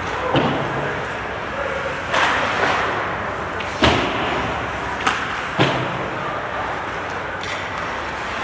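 Ice hockey play close to the goal: skates scraping the ice under a steady rink noise, with about five sharp clacks of sticks and puck, the loudest about four seconds in.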